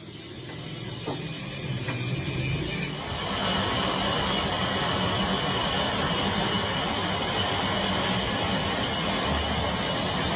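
Steady machine noise with a hiss, fading in over the first three seconds and then holding even.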